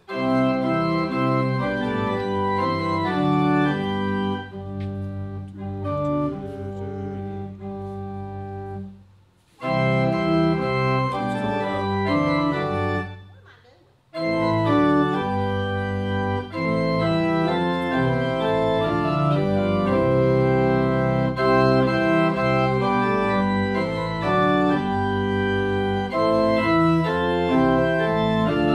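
C B Fisk Opus 143 pipe organ being played: sustained chords and moving lines over a full bass. There is a softer passage a few seconds in, and the playing breaks off briefly twice, about a third of the way through and again near the middle, before carrying on.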